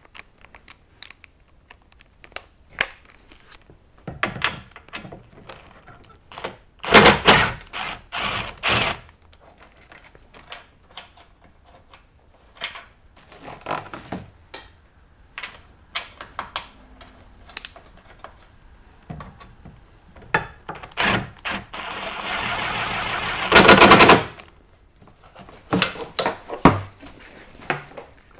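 Milwaukee M18 cordless impact driver with a T40 Torx bit hammering bolts loose in two rapid rattling bursts, one about a quarter of the way in and one about three-quarters through. Scattered clicks and knocks of tool and part handling come in between.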